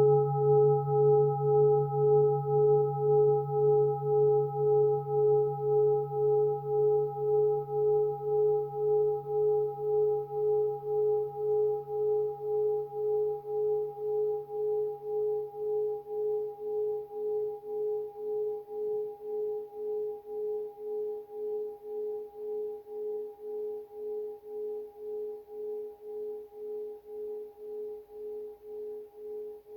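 A bell's long ring dying away after a single strike, several tones sounding together. The ring pulses about twice a second as it slowly fades.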